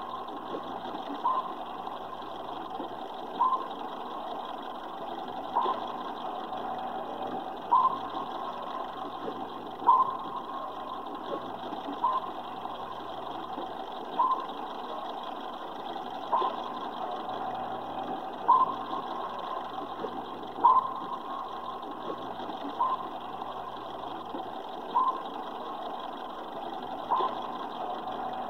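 Submarine control room ambience: a steady hum of machinery and ventilation, with a short sonar ping repeating evenly about every two seconds.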